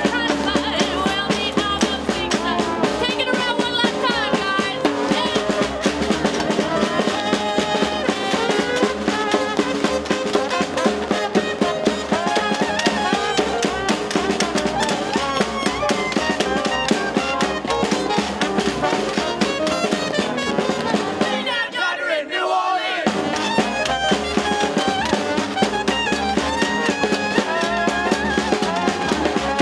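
A small New Orleans-style trad-jazz band playing live: trombone and trumpet over upright bass, snare and bass drum, and washboard. About three quarters of the way through, the bass and drums drop out for a moment in a short break, then the full band comes back in.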